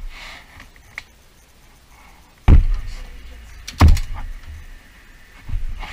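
Metal clunks and knocks from a long-handled wrench and socket on the front suspension bolts under the car: a light knock about a second in, two loud clunks about 2.5 and 4 seconds in, the second a quick double knock, and a softer thump near the end.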